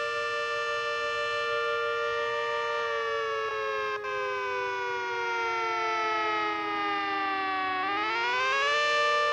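Century 40V2T electromechanical two-tone siren sounding a steady chord. About three seconds in the pitch slowly falls for some five seconds, then climbs quickly back to the steady chord near the end.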